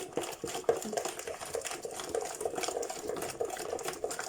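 A utensil stirring liquid cake batter by hand in a bowl, knocking against the bowl with an even clatter of about three or four strokes a second.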